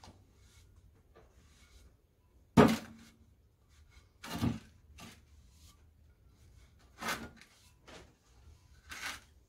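Removed wet cylinder sleeve knocking on the workbench as it is handled and turned over, four knocks a couple of seconds apart; the first is the loudest and rings briefly.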